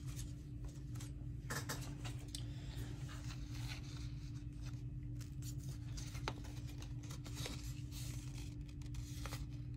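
Paper scraps rustling and crinkling as they are handled and sorted by hand, with scattered light taps, over a steady low hum.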